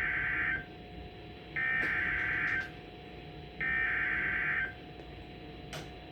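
Emergency Alert System SAME header on NOAA Weather Radio, encoding a severe thunderstorm warning: the end of one burst of digital data tones, then two more about a second and a half and three and a half seconds in. Each burst lasts about a second and is a high, rapid two-pitch warble.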